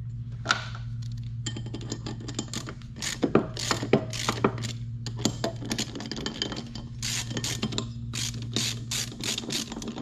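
Hand socket ratchet clicking in quick runs with short pauses, starting about a second and a half in, as the jacking bolts are turned in to press a mower deck pulley off its hub. A steady low hum sits underneath.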